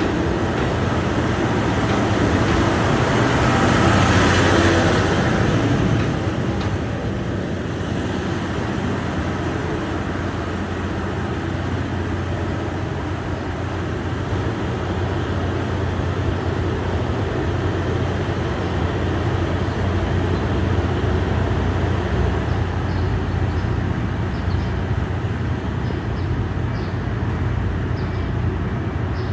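KiHa 183 series diesel multiple unit pulling out of the station: diesel engines running and wheels rolling on the rails, loudest as the cars pass close a few seconds in, then settling to a steady low engine drone as the train draws away.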